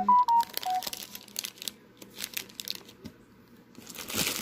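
Clear plastic cellophane bag of wax melts crinkling as it is handled, with scattered crackles and a denser burst of crinkling near the end. At the very start a quick run of short electronic beeps at different pitches, the loudest sound here.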